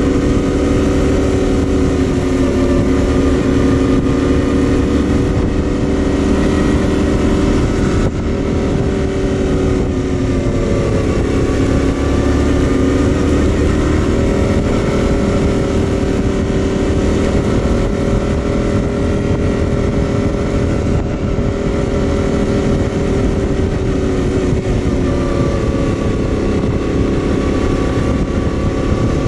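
2021 Yamaha Tenere 700's 689 cc parallel-twin engine running under steady throttle while riding. Its pitch dips and climbs back twice, about a third of the way in and again near the end, over a steady low rumble.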